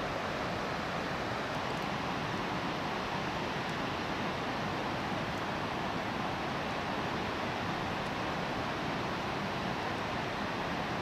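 Steady, even rushing noise with no distinct events, the sound of rushing water or wind outdoors.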